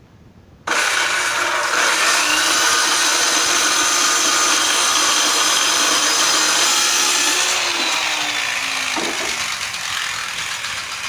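Electric power tool starting abruptly about a second in and cutting wood, running steadily with a hum whose pitch sags slightly near the end as the motor takes load.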